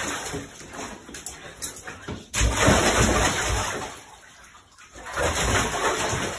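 A dog splashing and sloshing around in a bathtub of water. There are bursts of splashing, one starting suddenly about two and a half seconds in and another about five seconds in.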